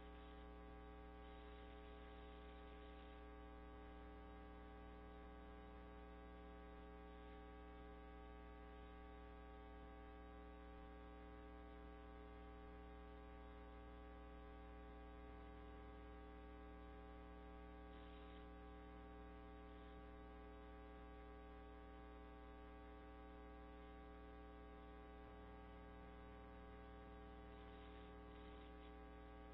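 Near silence with a steady electrical mains hum and its many overtones, unchanging throughout.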